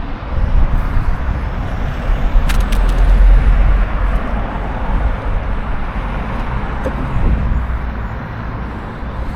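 Low vehicle rumble outdoors, swelling between about two and four seconds in, then easing off.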